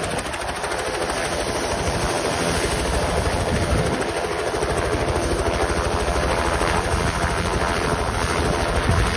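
Bell 206L LongRanger helicopter running on the ground at idle: steady turbine engine noise with the two-bladed main rotor beating in a fast, even rhythm.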